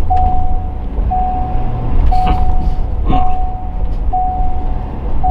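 Electronic warning beep, one steady tone sounding about once a second with short gaps, over the low rumble of a truck on the move.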